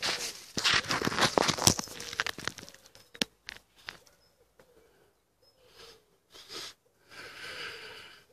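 Handling noise as a camera and its small tripod are picked up and moved: a dense burst of rustling and clicking over the first two seconds or so, then scattered clicks, and a softer rustle near the end.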